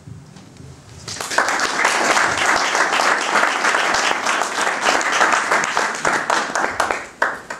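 Audience applauding at the end of a speech. The clapping starts about a second in and dies away near the end.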